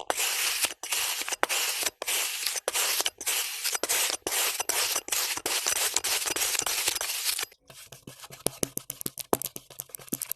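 Kinetic sand being cut with a blade: a run of rasping slices with short gaps between them. About seven and a half seconds in, it switches to a quieter patter of sharp crackling clicks.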